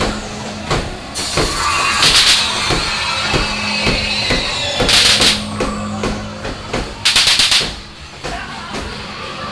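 Haunted-house soundtrack: pounding industrial-style music with about three thumps a second over a steady low hum, broken by loud bursts of hiss every two to three seconds. One burst near the end stutters in quick pulses.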